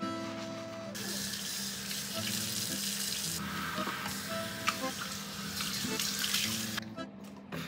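Tap water from a pull-out faucet sprayer running and splashing over hair into a sink as shampoo is rinsed out. The water starts about a second in and stops shortly before the end.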